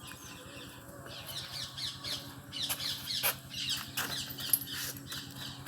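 Birds chirping and calling: many quick, high, falling chirps that grow denser from about two and a half seconds in, over a low steady hum, with a few sharp knocks among them.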